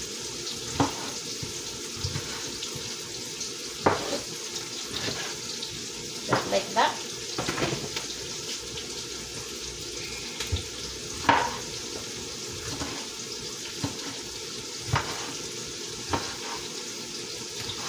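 Onions frying in oil with a steady sizzle, with a knife knocking on a cutting board now and then as tomatoes are cut into quarters.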